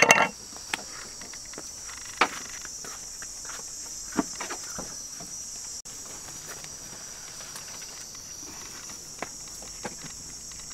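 Steady high-pitched insect chorus, crickets or cicadas, with a few scattered knocks and clatters: the loudest at the very start, others about two and four seconds in, and two small taps near the end.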